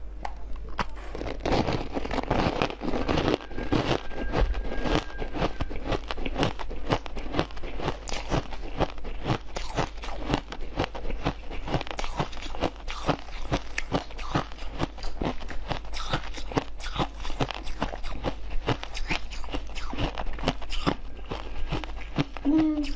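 Close-miked biting and chewing of frost-coated frozen jelly pieces: a dense, continuous run of crisp icy crunches and crackles, several a second.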